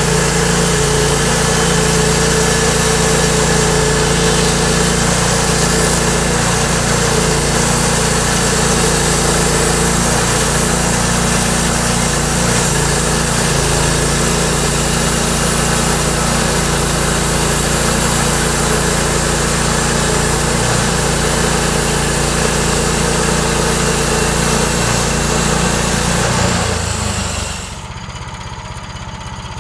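Portable sawmill running under load, its engine working steadily while the blade cuts through a log with a dense hiss. About two seconds before the end the level drops sharply and the cutting hiss stops, leaving a quieter, lower engine sound.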